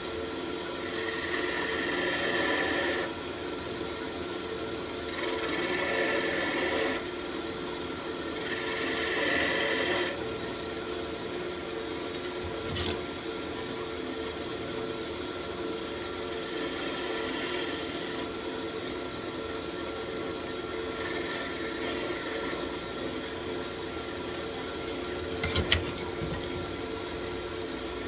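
Wood lathe running with a steady hum while a tool is pressed against the spinning walnut wand in about five short passes, each a scraping sound of about two seconds. A few sharp clicks come near the end.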